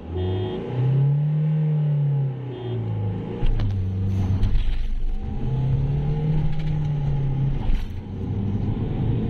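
Diesel SUV engine accelerating hard at full throttle from a drag-race launch, its pitch climbing and then dropping back at a gear change, twice.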